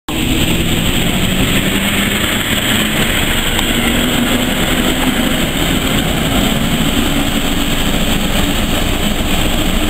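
Diesel shunting locomotive running steadily as it passes close by, a loud even engine noise with a faint wavering hum.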